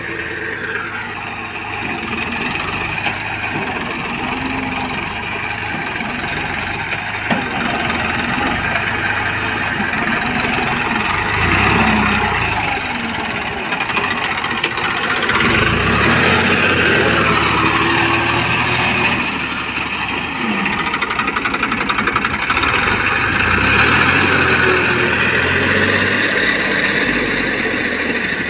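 Massey Ferguson 241 tractor's three-cylinder diesel engine running hard under load, its revs and loudness rising and falling in repeated surges as it strains with its rear wheels bogged in wet paddy mud.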